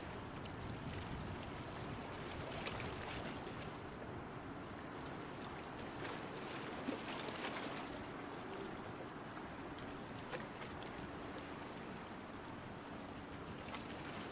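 Water rushing and splashing along the hull of a cruise ship under way, a steady wash with a faint low hum beneath it.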